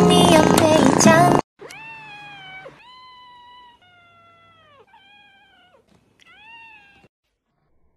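Background music cuts off about a second and a half in. A cat then meows five times in a row, each meow about a second long and falling in pitch at its end.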